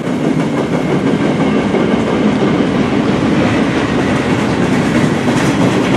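Freight train cars rolling steadily past, steel wheels running on the rails in a continuous, even noise.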